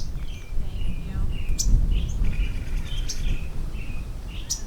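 Small birds chirping in many short calls over a steady low rumble, with two sharp clicks, one about a third of the way in and one near the end.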